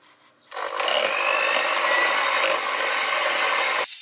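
Electric hand mixer switched on about half a second in and running steadily, its twin beaters churning thick cake batter as flour is mixed in. Just before the end the sound changes abruptly to a thinner hiss.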